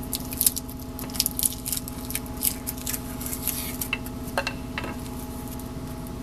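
Clear poly protective film being peeled off the top of a one-piece tire repair unit: a run of irregular crinkly crackles over a steady low hum.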